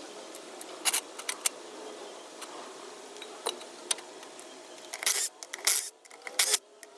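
Hand tools and small metal parts clinking and scraping during work on a mini skid steer: a few sharp clicks in the first half, then a cluster of louder scrapes and rattles about five seconds in, over a faint steady hum.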